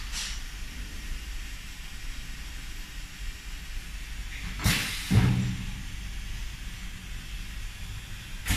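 Pneumatic cup heat-transfer press cycling. A short burst of hissing air a little past halfway is followed at once by a low thud, and another short hiss of air comes near the end, all over a steady low machine hum.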